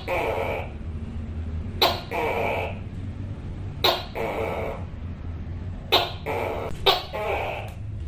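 Tokay gecko repeating its two-part "to-kay" call, about one call every two seconds: each a sharp, loud first note followed by a longer pitched syllable. A steady low hum runs underneath.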